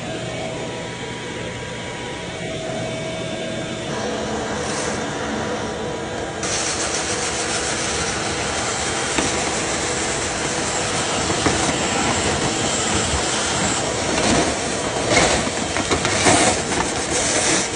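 Dryer vent cleaning equipment running with a steady rush of air. It turns louder and harsher about six seconds in, and it surges unevenly near the end.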